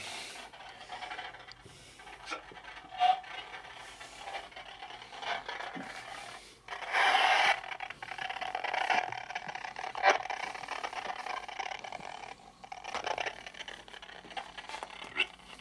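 Rustling and scraping as a person moves about and handles objects, with a few light knocks and a louder rustle about seven seconds in.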